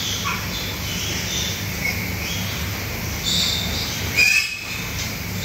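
Pig barn ambience: a steady low hum under scattered short, high-pitched chirps and squeaks, with a louder squeal about four seconds in.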